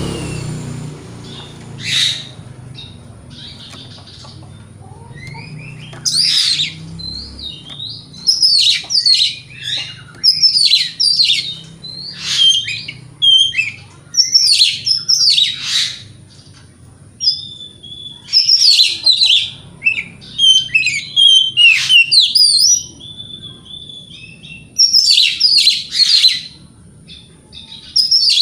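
Oriental magpie-robin singing vigorously: a loud, varied song of rapid whistles and harsher notes in phrases a second or two long, with short pauses between them.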